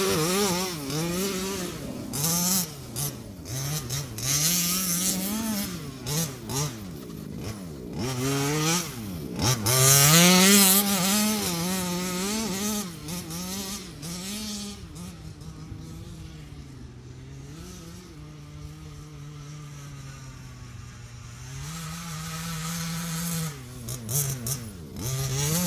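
1/5-scale Maverick Blackout MT RC truck's two-stroke petrol engine with a DDM Racing tuned pipe, revving up and down over and over as it is driven. It is loudest about ten seconds in, then holds a lower, steadier note for several seconds past the middle before revving up again near the end.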